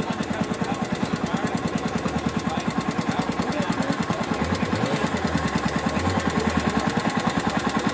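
Small engine idling nearby with a rapid, even putter of about ten beats a second.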